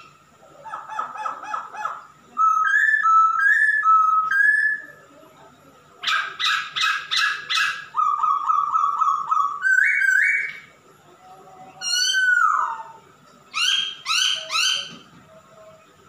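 Male Poksay Hongkong (Chinese hwamei) singing loudly in varied whistled phrases. Each phrase is a quick run of repeated notes, some rising and some dropping sharply, with short pauses between phrases.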